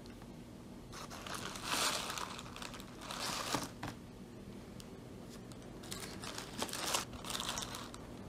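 Plastic film around durian pieces in a plastic tray crinkling as it is handled, in three separate bursts: about a second in, around the middle, and again near the end.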